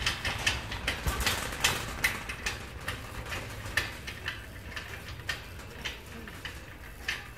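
Shopping cart being pushed on a hard store floor: a low rumble from the rolling wheels with a run of sharp clicks and rattles about two a second, the rumble easing after the first couple of seconds.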